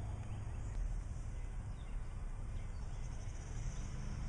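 Outdoor ambience: a steady low rumble with faint high chirring in the background.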